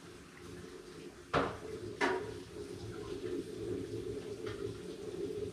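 Kitchenware being handled on a wooden bench: two sharp knocks of containers set down, about a second and a half and two seconds in, followed by a few lighter clicks.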